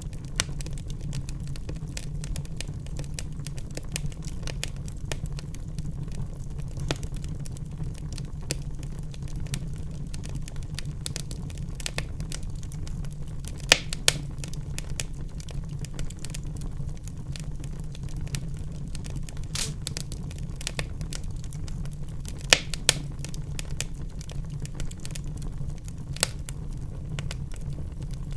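Wood fire burning in a fireplace: a steady low rumble of the flames under constant small crackles, with a few sharp, louder pops.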